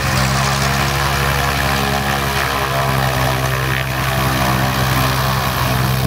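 Zivko Edge 540 aerobatic plane's Lycoming six-cylinder engine and propeller running at low power while taxiing, a steady even drone.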